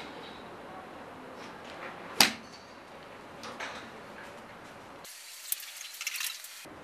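A golf club strikes a teed ball on a driving-range mat: one sharp crack about two seconds in, over a steady background hum. A fainter click follows, and near the end there is a short patch of thin crackling.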